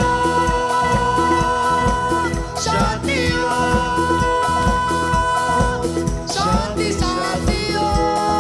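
A boy's voice sings long held notes, sliding between them twice, over live band backing with a steady beat: a disco-style Bollywood song performed on stage.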